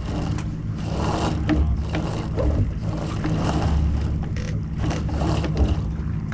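Water rushing and splashing against a Lightning sailboat's hull as it sails, with wind on the microphone and a steady low hum underneath.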